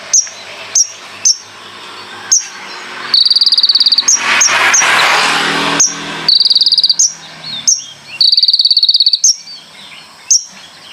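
Kolibri ninja (konin), a small sunbird, singing: short sharp chirps between loud, very fast trills about a second long, three of them. A loud rushing noise covers the song for about two seconds in the middle.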